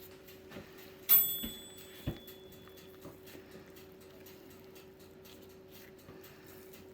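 A single sharp metallic clink about a second in, ringing briefly with a few high tones, followed by a dull knock about a second later, over a steady low hum. The sounds come from kitchen handling while a pork roll is being rolled up by hand.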